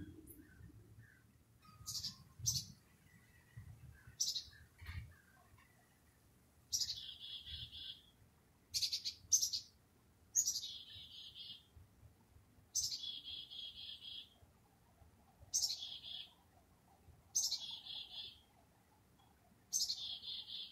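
Black-capped chickadees giving their chick-a-dee call over and over, about ten times, one call every couple of seconds. Each call is a high falling opening note followed by a buzzy run of 'dee' notes. It is the birds' chatter as they come in to their night roost, which the recordist guesses may be a last check for predators.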